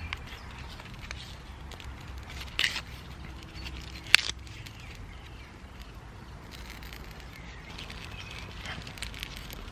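Quiet outdoor woodland ambience with a brief rasp about two and a half seconds in and one sharp click about a second later.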